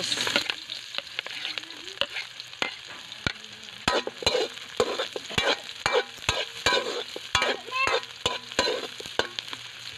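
Garlic, onions and ginger sizzling in hot oil in a steel wok, with a metal spatula stirring them and clacking and scraping against the pan in quick irregular knocks.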